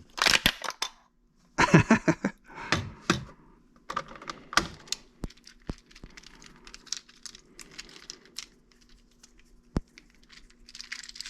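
3D-printed plastic fidget cube being flexed and turned in the hands: a run of sharp plastic clicks and clacks, loudest in the first few seconds, then lighter scattered ticks.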